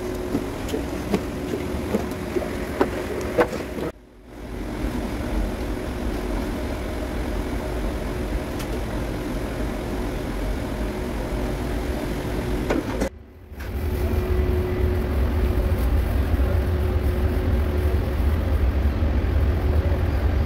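Steady low hum of running machinery, with scattered light knocks as a plastic jug scoops paint from the tank. The sound drops out briefly twice, and after the second break the low rumble is louder.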